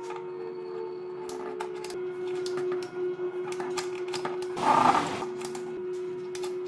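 Irregular light clicks and taps over a steady low hum, with a short louder noise about five seconds in.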